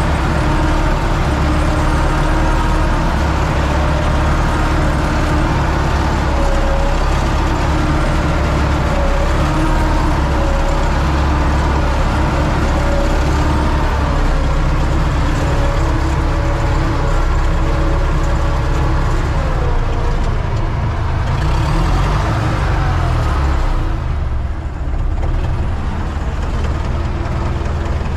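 Universal U650 tractor's four-cylinder diesel engine running steadily under load, heard from inside the cab while it pulls a row-crop cultivator. The engine note dips briefly near the end.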